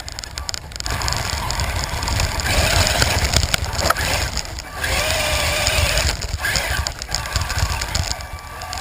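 Remote-control car driving fast over rough ground: its motor running and its chassis and wheels rattling, loud and noisy, in surges that drop back briefly a few times.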